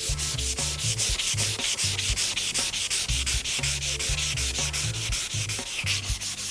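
240-grit sandpaper rubbed by hand back and forth along a wooden board in quick, even strokes: surface preparation sanding before an oil finish.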